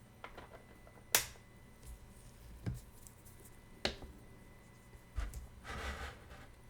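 Several sharp clicks and taps of small tools or parts on a watchmaker's bench, the loudest about a second in and another near four seconds, with a short rustle of handling near the end.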